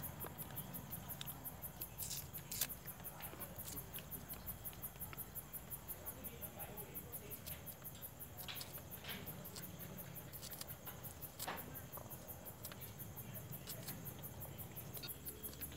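Faint crickets chirping in a fast, even pulse, with a few soft clicks scattered through as a knife slices garlic cloves held over a steel bowl and the slices drop in.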